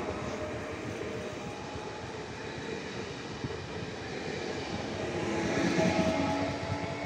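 PESA Elf EN76 electric multiple unit running past close by. Its electric traction gear gives a steady hum over the noise of wheels on the rails, and it gets louder about five to six seconds in.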